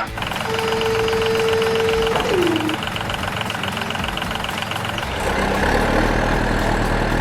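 Vehicle engine and machine sounds: a held tone that slides down in pitch about two seconds in, over a fast steady rattle, then a low engine rumble takes over from about five seconds in.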